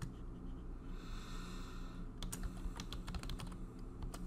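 Computer keyboard typing: runs of quick key clicks, with a pause of about a second before the typing resumes.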